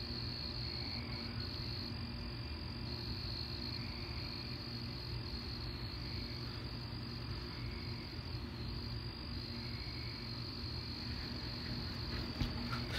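Crickets chirping in a steady, unbroken high-pitched chorus, over a low, steady background rumble.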